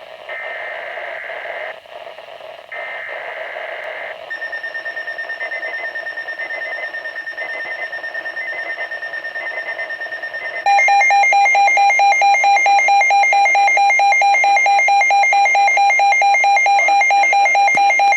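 Weather radio emergency alert signals: three short bursts of screechy data tones, then a steady high alert tone with faint beeps over it. About ten seconds in, a much louder, rapidly pulsing electronic alarm beep takes over, signalling a weather warning.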